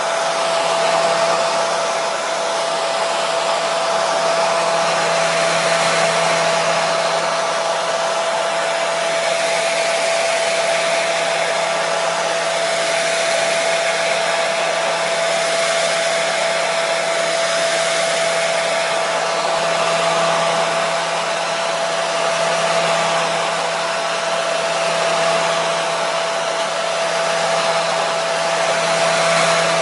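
Hair dryer running steadily: an even rush of blown air with a constant motor whine and a low hum, played as white noise for soothing a colicky baby.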